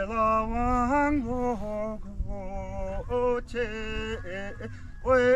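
A man singing a slow melodic song in long, wavering held notes broken into short phrases, over a steady low drone.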